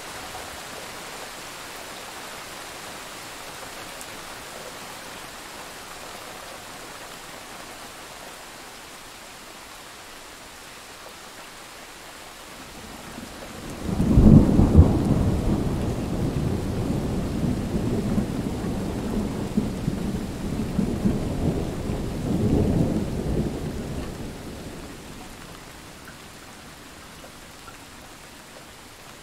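Steady rain throughout, with a loud thunderclap about halfway through that rolls on as deep rumbling for about ten seconds, swelling once more before fading back under the rain.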